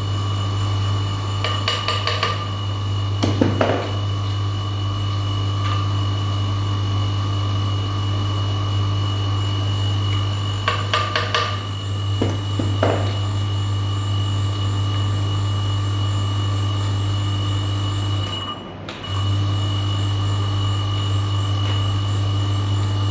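Electric domestic water pump motor running with a steady mains hum, interrupted briefly near the end, with a few clusters of short metallic taps and clicks.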